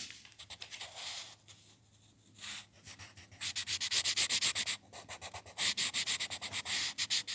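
Coloured pencil scribbling on a paper workbook page, rapid back-and-forth scratching strokes in two spells, the first starting about three and a half seconds in.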